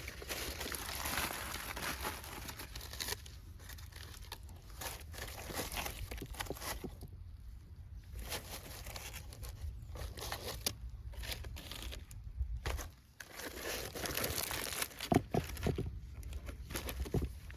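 Aluminium foil crinkling and rustling as it is handled, in irregular bursts with sharper crackles, a short lull around two-thirds of the way through, then a few louder crackles.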